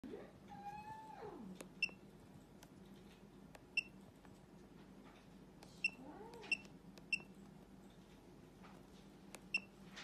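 Handheld OTDR tester's keypad beeping as its buttons are pressed to step through the menu: six short, identical high beeps at uneven intervals, with faint key clicks. A pitched call rises and falls near the start, and a shorter one comes about six seconds in, over a faint steady hum.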